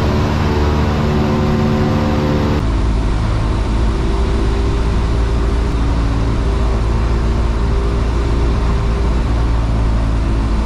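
Piston engine and propeller of a single-engine light aircraft, a steady drone heard inside the cabin in flight. The tone changes abruptly about two and a half seconds in, to a deeper, heavier hum.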